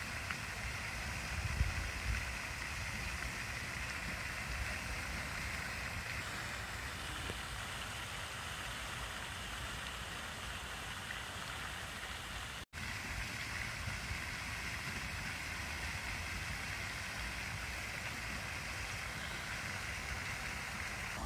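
Pond fountains spraying: a steady rushing hiss of falling water with a low rumble underneath, broken by a momentary dropout about two-thirds through.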